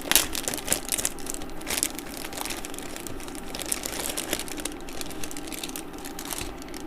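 Plastic instant-ramen packet being opened and handled by hand, the wrapper crinkling in quick irregular crackles, busiest over the first two seconds and sparser after.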